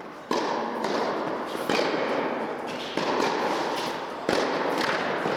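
Tennis ball being hit with rackets and bouncing during a rally: four sharp pops about a second and a half apart, each ringing out in the echo of an indoor tennis hall.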